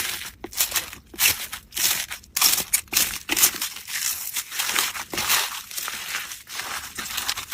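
Slime being squeezed and worked by hand, giving a dense, irregular crackling and crunching, several crackles a second.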